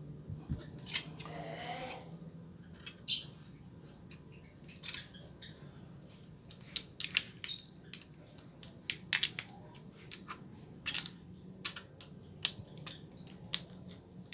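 Thin copper foil crinkling and crackling, with small plastic clicks, as it is pressed and smoothed by hand onto a plastic controller's phone holder. Irregular sharp crackles, coming thicker in the second half.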